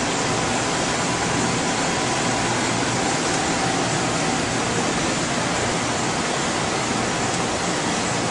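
Steady, even hiss of ventilation and equipment cooling fans, with a couple of faint steady tones through it.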